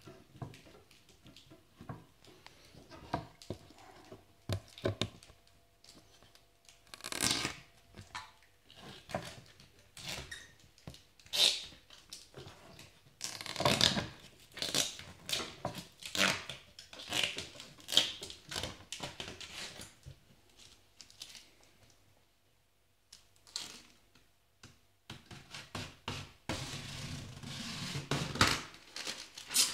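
Protective plastic film being peeled off a clear plastic panel: irregular crackling, tearing rasps in bursts. There is a short quiet pause about two-thirds through, then denser crackling near the end.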